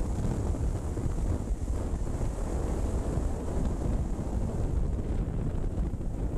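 Wind buffeting the microphone of a camera riding on a motorcycle at road speed: a steady low rumbling rush of wind noise.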